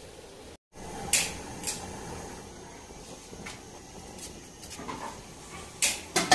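A metal spatula knocks and scrapes against a wok as food is stirred. There are two sharp clanks early on and a quick cluster of clanks near the end.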